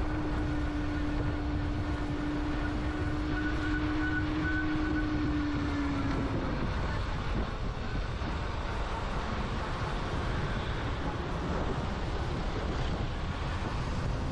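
Converted Honda Dream hybrid motorbike on the move, heard from the rider's seat: a steady low rumble of wind and road noise with a steady whine over it. The whine sags a little and stops about six seconds in as the bike slows.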